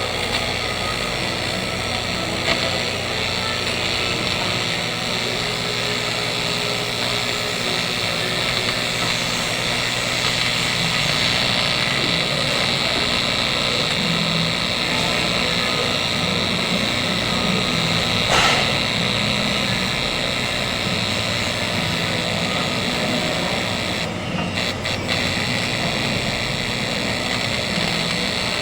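AC TIG welding arc on aluminium, a steady buzzing hiss that holds unbroken, with a single click partway through.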